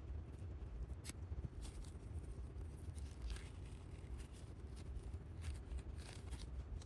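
Faint scattered clicks and light rustling of pliers and small parts being handled while working on a die-cast toy car's wheels, over a low steady rumble.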